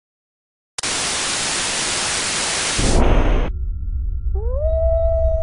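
Loud static hiss that cuts off abruptly, with a low rumble entering near its end and continuing; then a long howl rises and holds steady.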